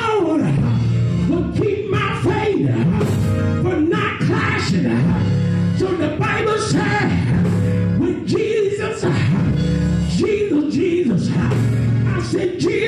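Gospel music: a man's amplified voice singing rising and falling lines, with few or no clear words, over sustained chords that change every second or two.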